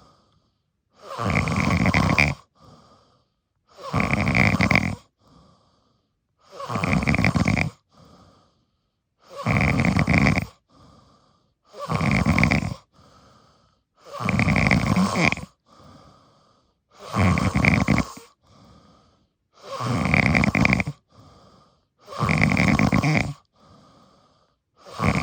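Deep, rhythmic snoring from a sleeper. A loud snore of about a second and a half comes roughly every two and a half seconds, each followed by a short, much fainter breath.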